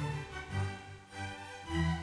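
Music with bowed strings over a low note that repeats about twice a second.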